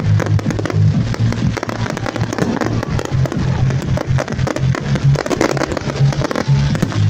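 A fireworks display crackling and popping in quick, dense succession, with music and its steady deep bass playing underneath.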